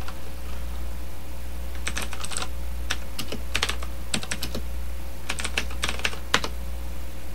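Computer keyboard typing: irregular runs of quick keystrokes, starting about two seconds in and stopping shortly before the end, over a steady low hum.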